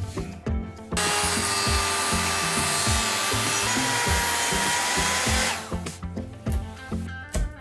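Handheld circular saw cutting a pine stair stringer, starting about a second in and running steadily for about four and a half seconds before stopping. It is followed by a few short chisel strokes into the wood, with soft background music throughout.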